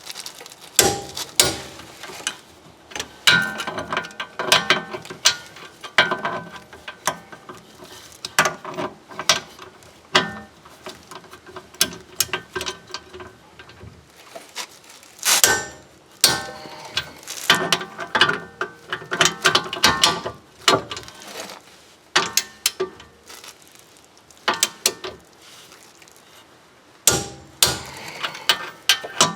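Ratchet torque wrench clicking in repeated strokes with short pauses, as the bolts of a new rear wheel hub bearing are tightened to 72 ft-lb.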